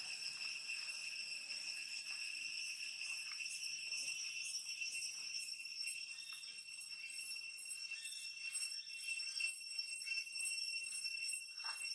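Steady high-pitched drone of insects, with soft short smacking sounds here and there from an infant long-tailed macaque suckling at its mother's nipple.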